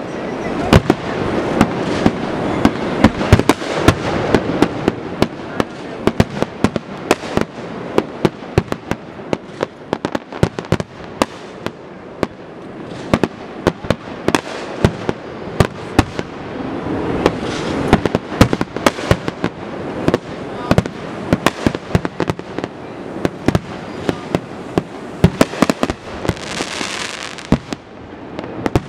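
Aerial fireworks display: a dense, rapid barrage of shell bursts, many sharp bangs a second over a continuous crackling haze, with a brief hiss near the end.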